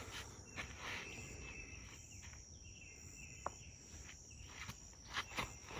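Insects, crickets by the sound, trilling steadily at a high pitch, with a few faint shorter calls and a couple of soft clicks.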